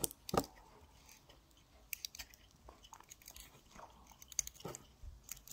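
Faint, irregular small clicks and scrapes of fingers unscrewing the spring-loaded flint screw from the base of a vintage Eveready (Otto Gaedike) petrol lighter.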